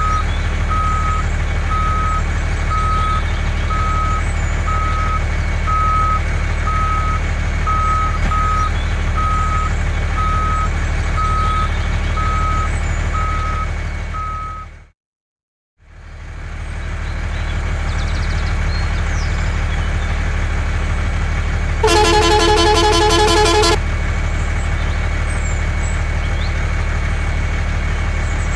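Truck engine running steadily with a reversing alarm beeping about once a second. The sound fades out briefly and comes back, and then a truck horn sounds for about two seconds.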